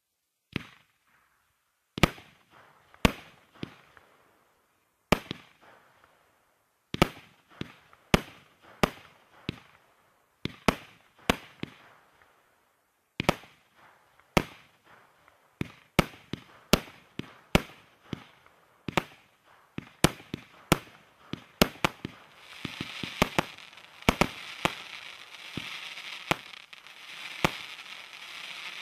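Inter Mezzo fireworks cake (compact battery) firing its shots in sequence: sharp separate reports about one a second, coming faster after about twenty seconds. Near the end a steady crackle from crackling stars runs under the reports.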